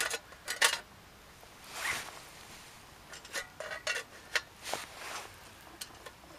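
A series of short scraping rasps and light clicks at irregular gaps from camping gear being handled, zipper-like in sound.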